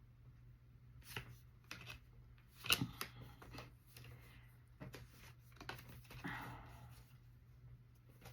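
Tarot cards being handled: faint scattered rustles and soft taps of cards being shuffled and laid down, the loudest a little under three seconds in, over a low steady hum.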